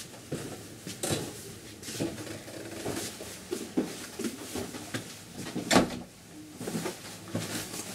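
Footsteps and knocks on a steep wooden ship's stairway, irregular thuds and creaks with one sharp loud knock about three-quarters of the way through.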